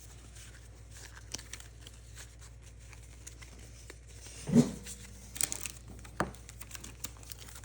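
Pokémon trading cards and foil booster-pack wrappers being handled on a table: scattered small clicks and crinkles, a soft low thump about halfway through, then a short burst of foil crinkling.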